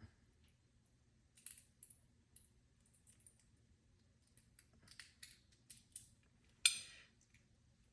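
Faint, scattered light clicks of small door-handle hardware (metal handle pieces, screws and washers) being handled and fitted, with one sharper clink about six and a half seconds in.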